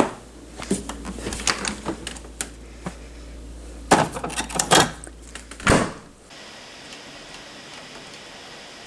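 A run of irregular knocks and clicks, like a door or objects being handled, loudest around four to five seconds in. At about six seconds it gives way to a steady faint hiss.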